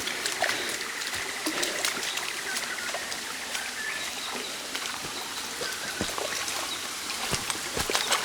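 Shallow creek water running and trickling over rock, with many small splashes and sloshes of water scattered through it.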